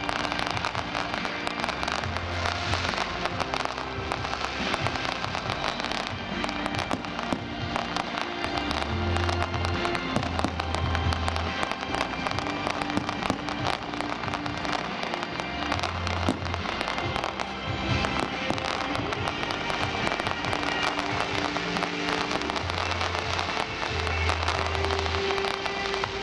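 Aerial fireworks display: a continuous dense crackling and popping of bursting shells, with music playing alongside and steady held bass notes.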